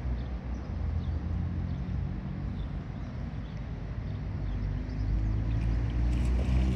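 Low engine rumble of a motor vehicle, growing steadily louder toward the end as it approaches.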